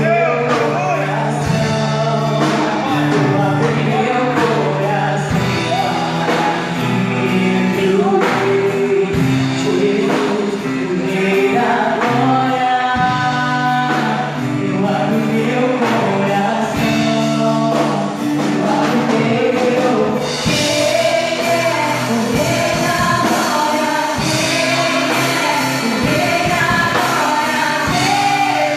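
Live gospel worship music: a band with a sustained bass line and a group of singers. Cymbals come in brighter about two-thirds of the way through.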